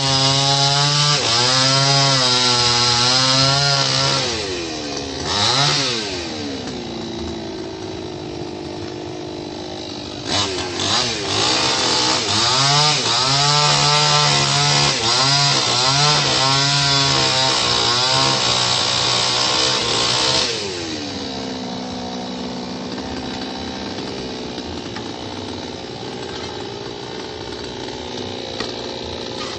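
Two-stroke chainsaw run at high revs in two long spells, the first about four seconds and the second about ten seconds, its pitch wavering and dipping, with a short blip of throttle between. Between and after the spells it drops back to a steady idle.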